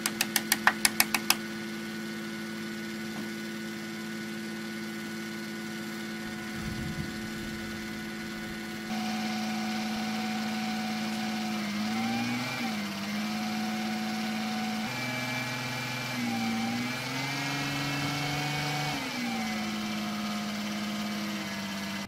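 Crane engine running steadily, its pitch dipping and rising a few times in the second half as it works. A quick run of loud, evenly spaced knocks, about seven a second, opens the first second.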